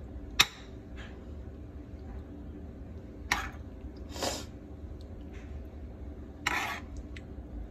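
A metal spoon clicking sharply against a pan, with a few more light clicks and short scraping noises as meat filling is scooped out and spooned onto the potatoes.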